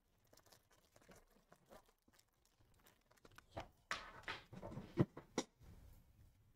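Faint handling of trading cards and foil pack wrappers: soft clicks and rustles, a louder rustle about four seconds in and a sharp click a second later.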